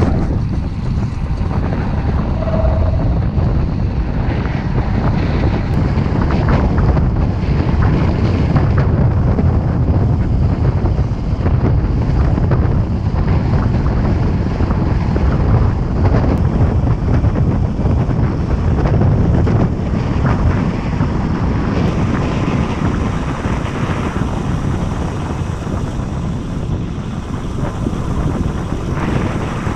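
Loud wind rush buffeting the camera microphone as a bicycle descends a steep road at high speed, steady throughout.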